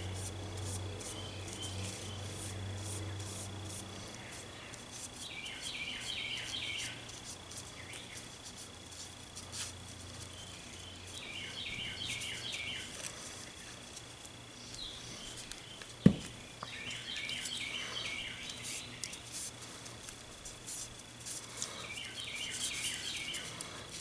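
A short phrase of high chirps repeats about every five or six seconds over faint rubbing and ticking, with one sharp click about two-thirds through.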